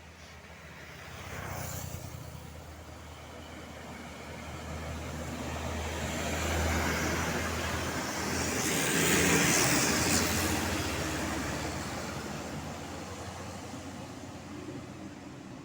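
Road traffic passing on a hill. A vehicle goes by about two seconds in, then a heavy vehicle's engine and tyre noise builds up, is loudest about nine seconds in, and fades away.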